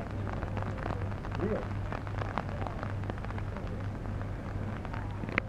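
Rain falling steadily on a flooded street, a dense patter of drops over a low steady hum, with a brief distant voice about a second and a half in.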